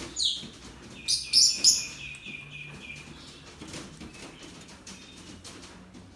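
Small birds chirping: a sharp chirp right at the start, a loud burst of high chirps between about one and two seconds in, then fainter calls.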